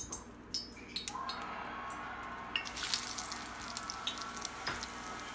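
Avocado oil heating in a skillet, crackling and spitting, the crackle thickening about two and a half seconds in. A few light clicks sound near the start.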